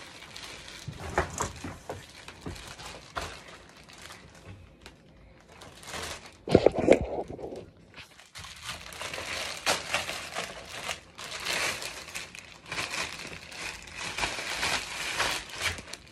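Plastic packaging crinkling and rustling as it is handled, with scattered small knocks and a brief louder clatter about six and a half seconds in.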